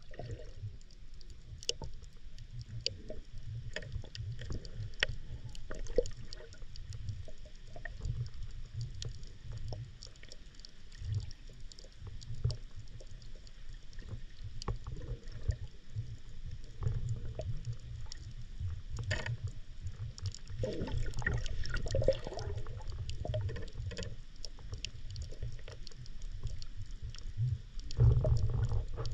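Underwater sound picked up by a submerged camera: a muffled low rumble of moving water with scattered sharp clicks and crackles, growing louder for a while about two-thirds through and again near the end.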